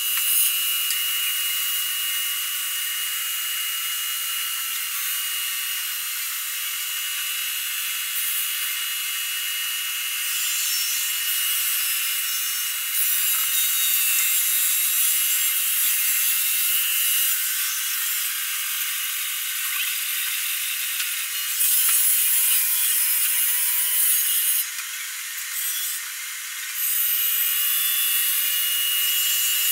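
Overhead arm-mounted marble polishing machine, its spinning head grinding over marble slabs: a steady gritty hiss with a thin high whine, louder in stretches, dipping twice briefly near the end.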